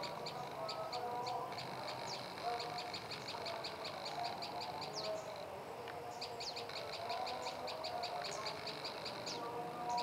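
Prenjak lumut songbird singing: fast runs of short, high chips at about eight a second, mixed with a few sharp slurred notes, with a pause of about a second around the middle.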